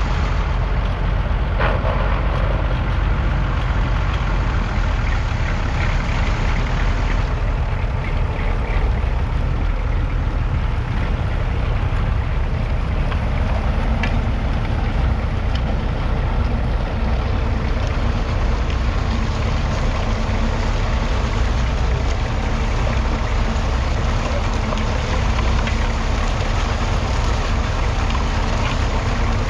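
Perkins P6 six-cylinder diesel engine of a Fordson Major E27N tractor running steadily.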